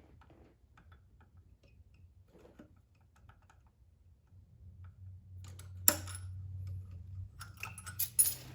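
Small metal hand tools clicking and clinking on the engine's valve rocker adjuster, faint at first, with a sharp metallic clack about six seconds in and a quick run of knocks near the end. A low hum rises underneath from about five seconds.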